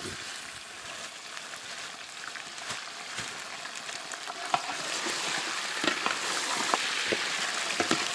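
Raw chicken pieces sizzling in hot oil with fried onions in a large pot, with scattered sharp pops; the sizzle grows louder about halfway through.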